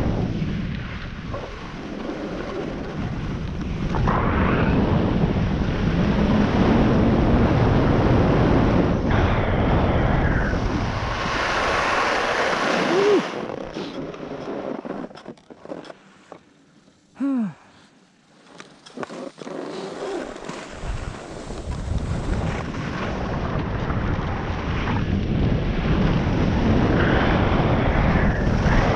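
Wind buffeting the camera microphone while descending a groomed ski run, mixed with the scrape of edges sliding over packed snow. The rush dies down for several seconds around the middle as the descent slows, then builds up again.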